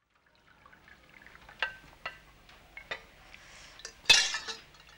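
Tea poured from a steel saucepan through a metal tea strainer into a china cup, with light clinks of metal on china. A louder metal clatter about four seconds in, as the pan goes back onto the gas stove.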